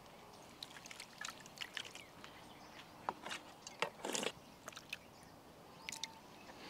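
Thick curd being spooned onto marinated chicken pieces: faint soft wet plops and scattered small clicks, the loudest plop about four seconds in.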